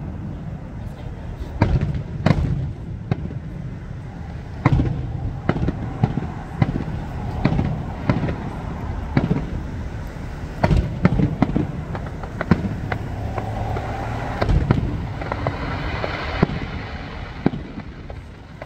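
Aerial fireworks shells bursting overhead in an irregular series of a dozen or more sharp bangs.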